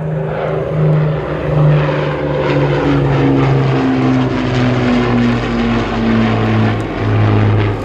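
Piston-engined propeller aircraft flying past, its engine drone dropping steadily in pitch as it goes by.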